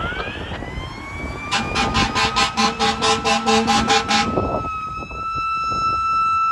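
Ambulance siren wailing upward, then the air horn sounding in rapid pulses, about five a second, for nearly three seconds over the siren; after that the siren holds a steady high tone.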